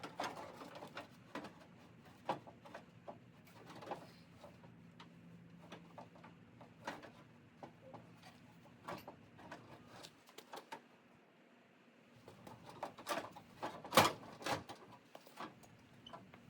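Scattered light knocks and clicks of hands-on work fitting body panels on a truck, with one sharp, louder knock about 14 seconds in, over a faint low hum that stops about ten seconds in.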